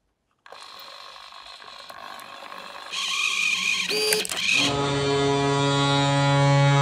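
A small motorized hockey-shooting mechanism runs and clatters, with a sharp strike as the model stick shoots the puck about four seconds in. Then an NHL goal horn starts playing through a speaker, a loud, steady low horn blast that sounds the goal notification.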